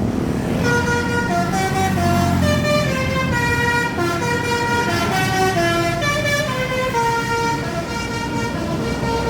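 Basuri-type telolet bus horn playing a melody: a run of loud held notes stepping up and down, a few to the second, over the low rumble of the bus engine.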